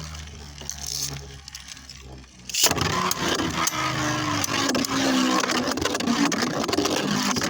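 Two Beyblade Burst tops launched into a plastic stadium about two and a half seconds in, then spinning with a steady whirring scrape and many small clicks as they hit each other and the stadium walls.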